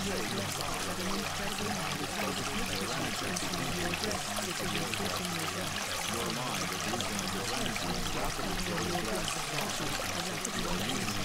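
Steady rushing water, a recorded nature-sound bed, with a faint voice murmuring beneath it: the masking background of a subliminal affirmation recording.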